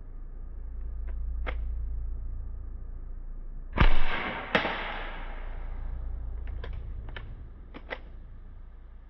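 A BB gun shot about four seconds in, followed by a hiss that fades over a second or two, with a second sharp crack just after it. Light clicks come before and after.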